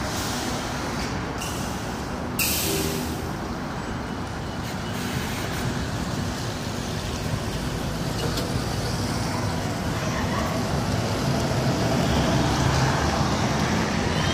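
City bus at the stop with a short, sharp air-brake hiss about two seconds in, over a steady rumble of engines and street traffic that grows gradually louder.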